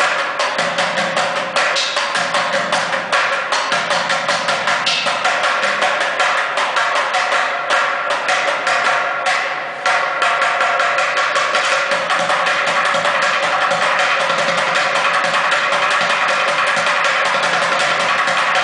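Two bucket drummers playing plastic buckets with drumsticks in fast, dense strokes. About halfway through, the accented beats give way to a fast, even run of strokes.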